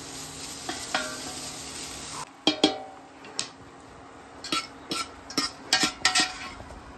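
Smoked sausage pieces sizzling in a stainless steel stockpot as they are stirred with a spatula, with a couple of light knocks against the pot. About two seconds in, the sizzle cuts off, and a wire skimmer then scrapes and clinks against the pot's ringing metal sides several times as the cooked sausage is scooped out.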